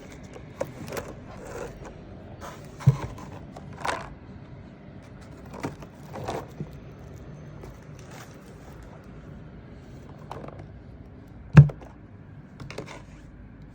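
Unboxing handling noise: short scrapes, rustles and light knocks as a keyboard box and its packaging are handled. A thud comes about three seconds in, and the loudest one a little before the end.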